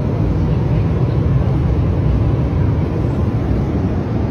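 Steady low cabin noise inside an airliner: an even rush of engine and airflow noise.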